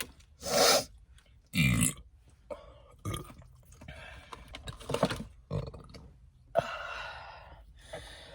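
A woman burps: a short, deep burp about a second and a half in, after a briefer sound just before it. Quieter clicks and rustling follow.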